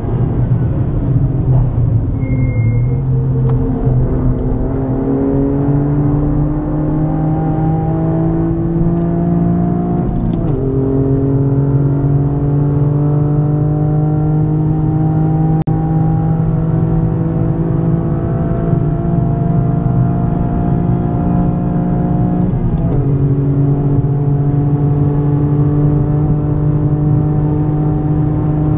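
Toyota GR Yaris's turbocharged 1.6-litre three-cylinder engine with an aftermarket Aulitzky exhaust, heard from inside the cabin under hard driving. Its pitch falls over the first few seconds as the car slows, then climbs in long pulls, with an upshift about ten seconds in and another about twenty-three seconds in.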